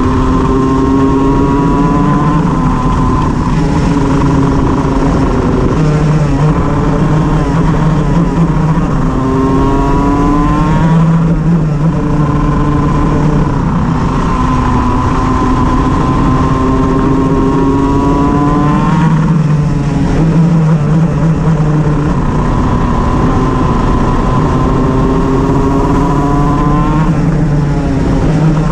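Shifter kart's two-stroke engine running hard, its pitch repeatedly climbing and then dropping back every few seconds as it accelerates and lifts. The engine is reported to be misfiring.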